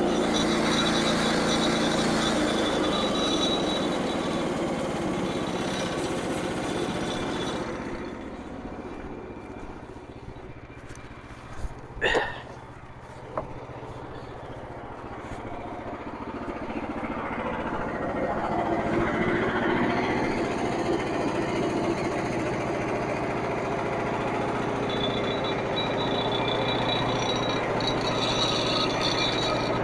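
Frontier OS27 portable band sawmill running, its gas engine driving the band blade through a log under the power feed. The noise drops away for several seconds in the middle, with a few sharp knocks about twelve seconds in, then rises back to a steady run.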